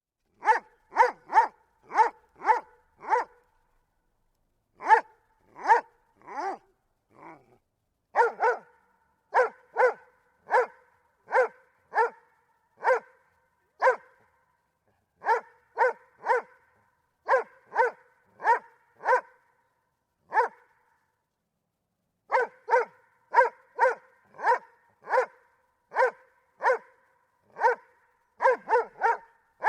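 Doberman barking repeatedly: single sharp barks at about two a second, in bouts broken by short pauses, with a few softer, quieter sounds during one pause.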